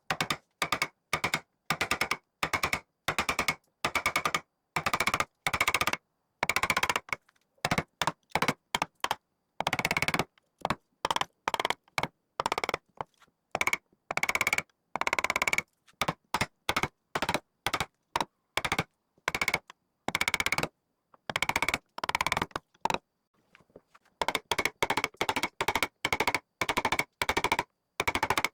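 Short bursts of rapid, machine-like hammering strikes, each burst lasting a fraction of a second to about a second and stopping abruptly, repeating over and over with brief silences between.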